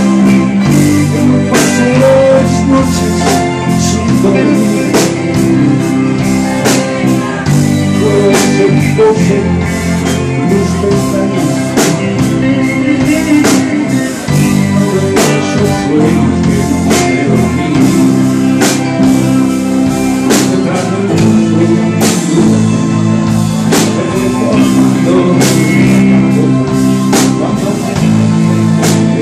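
Live rock band playing: electric guitars, bass guitar and drum kit, with a regular drum beat.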